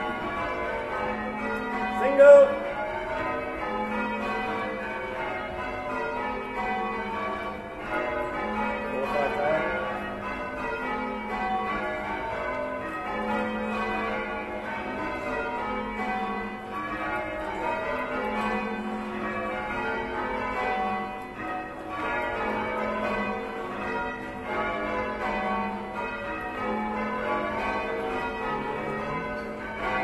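Church bells in change ringing, struck one after another in a steady rolling sequence, heard from the ringers' floor beneath the tower. A short, loud shouted call cuts in about two seconds in.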